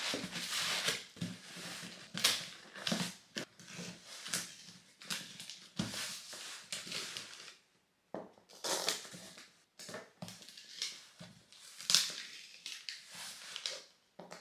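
Cardboard shipping box being packed and taped shut by hand: irregular rustling of tissue-paper-wrapped contents, cardboard flaps folded down and packing tape rubbed onto the box, with a couple of brief pauses about halfway through.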